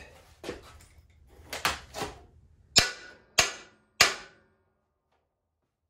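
Hammer striking the steel frame of a stripped John Deere 185 lawn tractor: a few lighter knocks, then three sharp, ringing metal-on-metal blows about half a second apart, knocking parts down on the channel frame.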